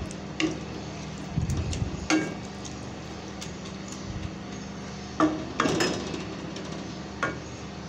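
A spoon stirring moong dal in a metal pot, knocking against the pot's side several times with wet stirring in between.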